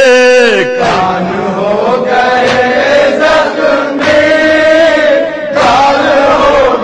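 Voices chanting a noha, a Shia lament, in long held notes. One held note falls away just under a second in and a new chanted phrase begins.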